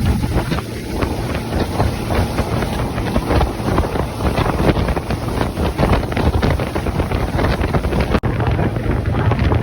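Boat running across open water, with heavy wind buffeting on the microphone. There is a brief dropout near the end.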